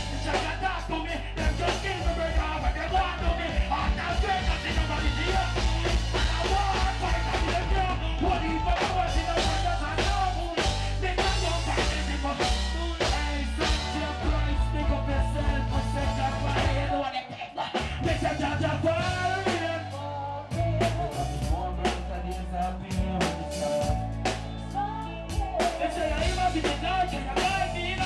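Live dancehall band performance: drum kit and a heavy bass line under a male singer's vocal, with the bass dropping out briefly about two-thirds of the way through.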